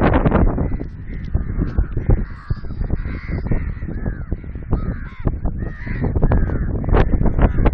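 A group of crows cawing, many harsh calls overlapping without a break, over a steady low rumble.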